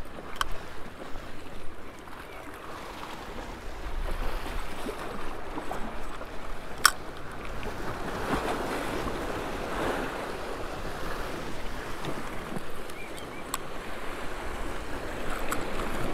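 Small waves washing against granite jetty rocks, with wind rumbling on the microphone; the wash swells louder about eight seconds in. A single sharp click sounds about seven seconds in.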